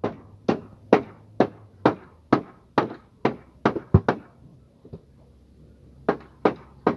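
Hammer striking wooden boards in a steady rhythm of about two blows a second, some ten blows, then a pause of about two seconds before three more.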